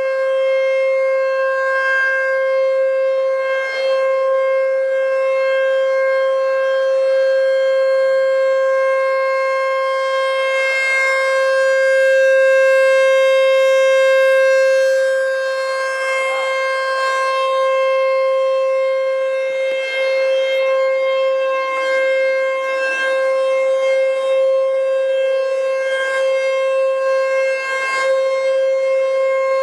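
American Signal T-128 electromechanical warning siren, heard up close, sounding one steady, unchanging tone, swelling slightly louder now and then.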